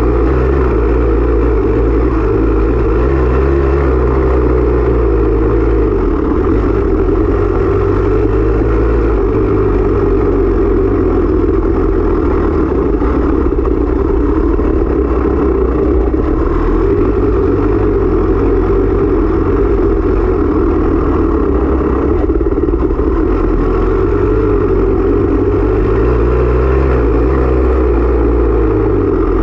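Off-road dirt bike engine running hard under way, its pitch rising and falling with the throttle.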